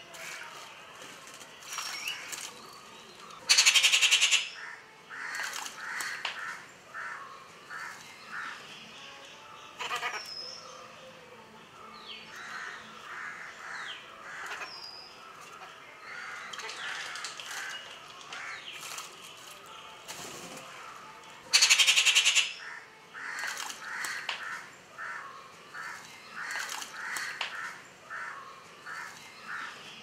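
Rufous treepies calling at a water bowl: runs of short, harsh repeated calls and a few thin whistles. Two loud, harsh rattling bursts come about four seconds in and again about twenty-two seconds in.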